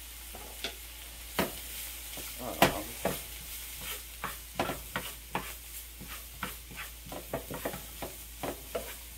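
Onions and red bell pepper sizzling as they sauté in a frying pan, with a cooking utensil clicking and scraping against the pan as the vegetables are stirred, in irregular taps about one or two a second.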